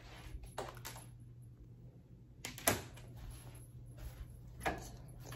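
A few short soft knocks and rubs, the loudest just under three seconds in, over a steady low room hum.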